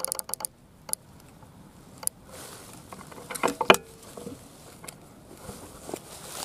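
Air rifle being handled and readied to shoot: a string of sharp mechanical clicks and clacks, with the loudest clack about three and a half seconds in.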